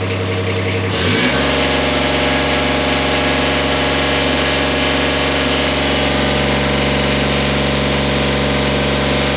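Toro Greensmaster 3250-D's diesel engine revs from idle up to full throttle about a second in, then runs steadily at full speed on its old, nearly 5000-hour exhaust. At full throttle it measures about 90 dB at the driver's ear.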